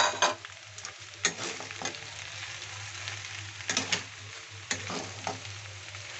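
Pasta frying in a metal wok with a steady sizzle. A metal spatula scrapes and knocks against the pan in several sharp strokes as it is stirred.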